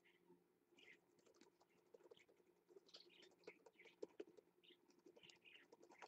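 Young budgerigar chicks giving faint short chirps, with many quick soft clicks and scratches as they peck and move about in the nest bedding. A faint steady hum lies under it all.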